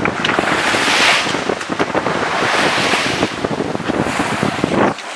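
Wind buffeting the microphone and choppy sea rushing past the hull of a sailing yacht under way in a force 4 to 5 wind, loud and steady with gusty bursts. It drops off abruptly just before the end.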